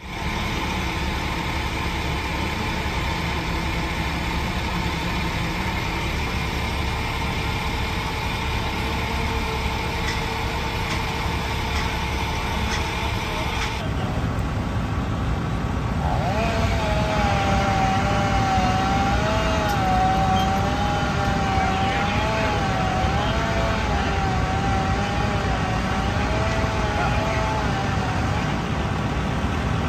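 Heavy engines of fire apparatus running steadily, a low even drone with steady tones in it. Partway through, the sound cuts abruptly to a different take. Over the second half a high whine wavers slightly up and down above the drone.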